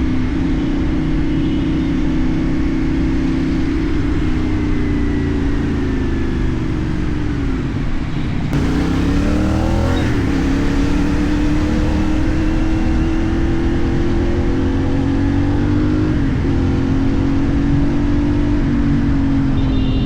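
CFMoto 450NK's parallel-twin engine through a LeoVince aftermarket exhaust while riding. The engine note falls steadily as the bike slows for about eight seconds, then rises in a few quick sweeps as it shifts up through the gears. It then settles into steady running with a short dip near sixteen seconds at a gear change.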